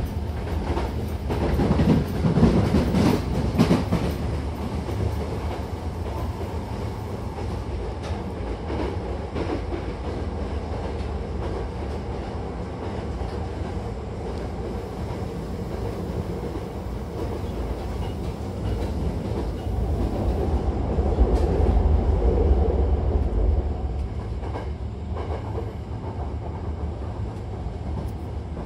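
Hankyu commuter train running at speed, heard from inside the passenger car: a steady low rumble of wheels on rails. It grows louder for a couple of seconds near the start and again for a few seconds past the middle.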